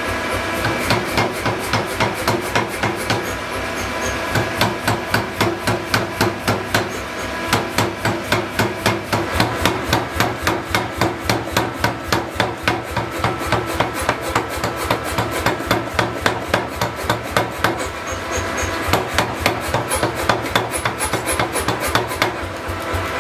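Mechanical power hammer pounding a red-hot steel bar on its anvil die: a rapid, even run of heavy metal-on-metal blows, several a second, easing briefly a couple of times as the bar is drawn out into a blade blank.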